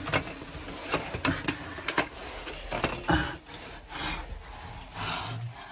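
Body, clothing and camera scraping and rubbing against rock and clay while crawling through a tight cave squeeze: irregular scrapes with scattered knocks.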